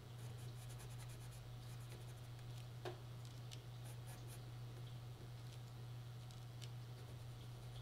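Faint scratching of a colored pencil shading on paper, over a steady low hum, with one small click about three seconds in.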